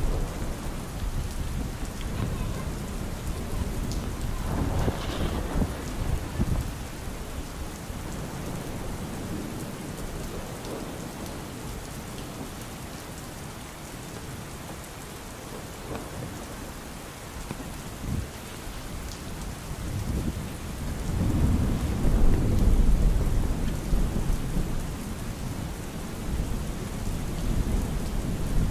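Steady rain falling on an umbrella, with deep rolling thunder rumbling in twice: briefly about five seconds in, then longer and louder about two-thirds of the way through.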